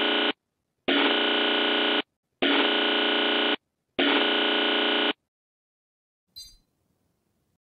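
Harsh electronic buzzer alert tone of a mock emergency broadcast, sounding in four even blasts of about a second each, about a second and a half apart, the first already under way. A short faint click follows about six seconds in.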